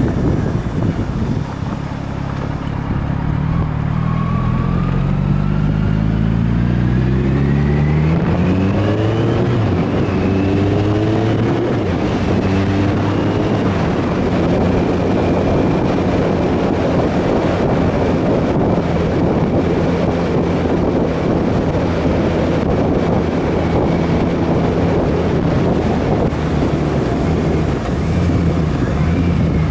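Motorcycle engine pulling away and accelerating, its pitch climbing and dropping back through about three gear changes, then holding at a steady cruise. Wind rushes over the microphone throughout.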